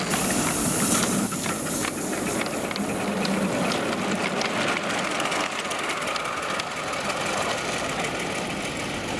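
7¼ inch gauge live-steam miniature locomotive and its wagons running past on the rails, with steam hissing and wheels clicking over the track. The hiss is strongest in the first couple of seconds.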